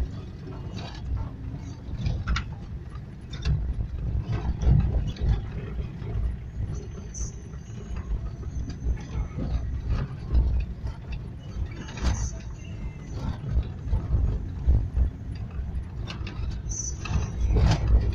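Vehicle cabin noise on a rough gravel road: a steady low rumble from the engine and tyres, broken by frequent knocks and rattles as the vehicle jolts over stones and potholes.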